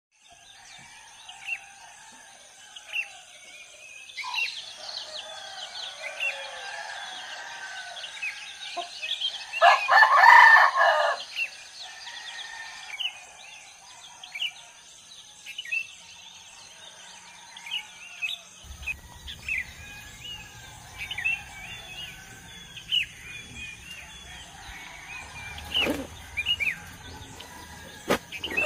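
A rooster crowing once, about ten seconds in, over many short chirps of small birds and a steady high whine. A low rumble comes in a little past halfway.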